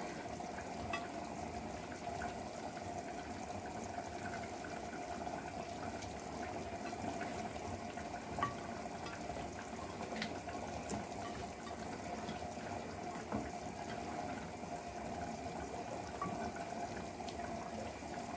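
Steady watery hiss with a faint hum under it, and a few soft taps and rustles as romaine lettuce leaves are laid on a ceramic serving plate.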